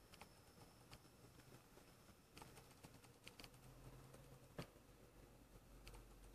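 Near silence: faint room tone with a scattering of small, irregular clicks, the sharpest about four and a half seconds in.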